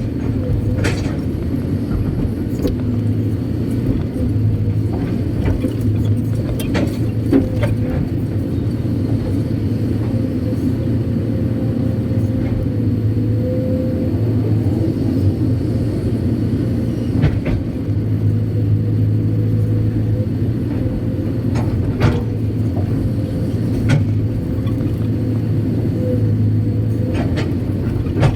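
Kobelco SK200-8 Super X excavator's diesel engine and hydraulics running steadily under load, a continuous drone with a thin steady whine above it. Occasional sharp knocks and clatters come through as the machine works laterite gravel.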